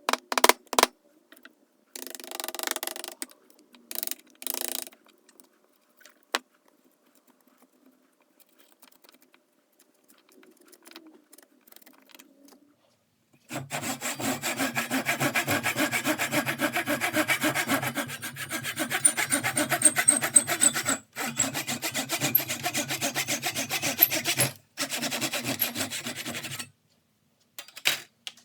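A saw cutting wood in a long, steady run of rapid strokes that starts about halfway through, breaking off briefly twice before stopping. A few short bursts of scraping and handling noise come first.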